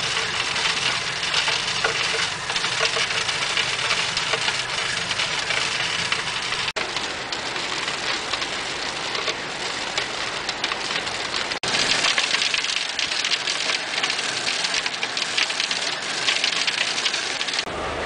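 Coal washing plant machinery running: a steady mechanical din with a low hum under a rushing hiss. The sound changes abruptly twice, and the later part is mostly hiss.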